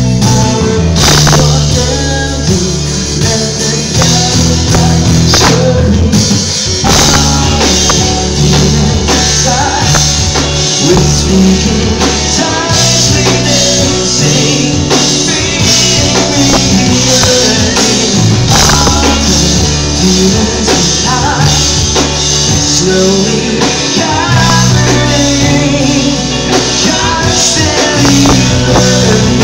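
Live rock band playing loud through the venue's amplification: electric guitars, bass guitar and drum kit.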